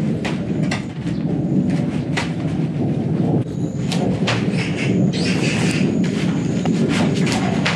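Footsteps on dry grass and straw, with irregular rustles and light knocks over a steady low rumble.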